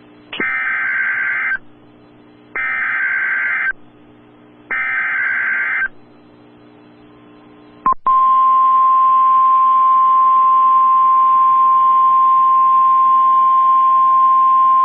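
Emergency Alert System SAME header: three bursts of warbling digital data tones, each about a second long with a second's gap between them. About eight seconds in, the steady single-pitch NOAA Weather Radio 1050 Hz warning alarm tone starts and holds, signalling a warning is about to be read.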